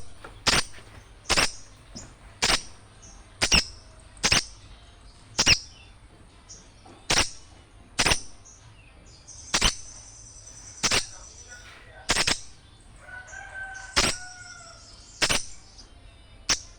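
Small birds' sharp, noisy chip calls, one loud call about every second at an uneven pace. Near the end a fainter, held call sounds briefly beneath them.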